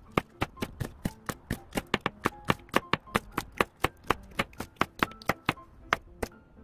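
Chef's knife mincing Cheongyang green chili peppers on a plastic cutting board: quick, even chops at about four a second that stop shortly before the end. Faint background music underneath.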